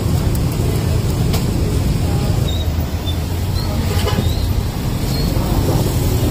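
Steady street traffic noise: motorbikes and cars running past, with a deep, continuous rumble.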